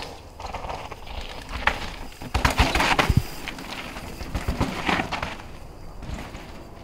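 Mountain bike ridden down a dirt trail: tyres crunching and skidding on loose dirt and rock, with clattering knocks from the bike. It is loudest as it goes by, two and a half to three seconds in, and again briefly around five seconds in.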